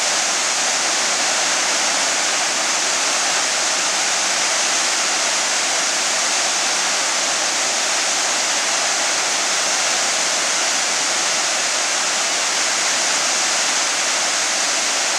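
A large waterfall pouring onto rocks: a loud, steady, even rush of falling water.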